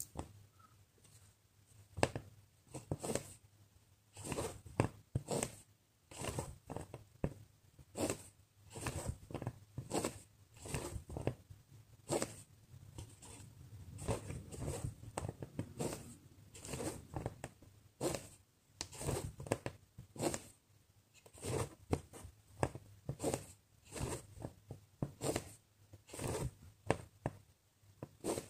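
Embroidery thread pulled through cross-stitch fabric stitch after stitch: a short scratchy draw every half second to a second as the needle goes in and out.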